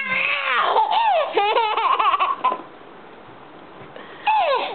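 Baby laughing: a run of high-pitched giggles for about two and a half seconds, a pause, then another short laugh near the end.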